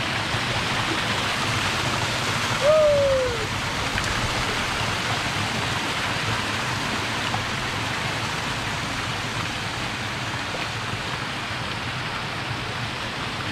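Steady rushing of running water. A short call rises and falls in pitch about three seconds in.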